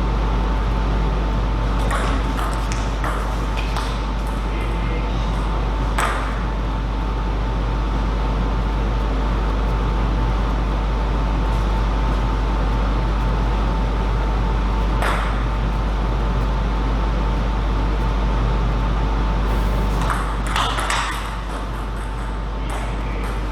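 Table tennis ball clicking against bats and table: a short rally of quick hits a couple of seconds in, single hits later, and another cluster near the end. Under it runs a steady low hum with a faint steady high tone.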